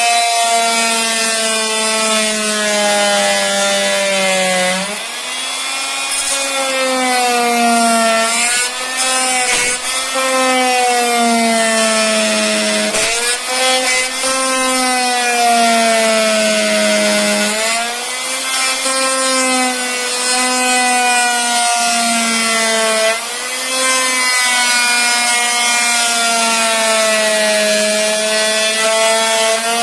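Oscillating multi-tool cutting into laminate flooring boards, a continuous buzzing whine whose pitch sags and recovers several times as the blade is pressed in and eased off. It is trimming the board ends to open an expansion gap at the wall.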